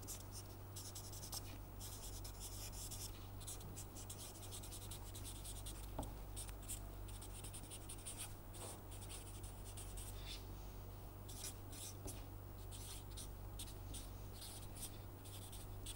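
Marker pen writing on paper: faint, short scratching strokes, one after another, as a line of words is written out.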